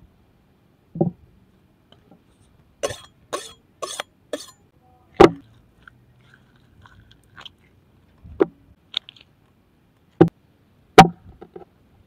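Large cleaver chopping raw chicken on a wooden board: separate sharp chops, the loudest about five seconds in and again near the end. A quick run of four softer, rustling strokes comes just before the first loud chop.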